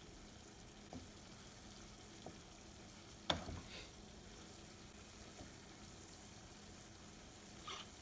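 Long beans frying in red curry paste in a pan, a faint steady sizzle, with a few sharp knocks of a utensil against the pan, the loudest about three seconds in.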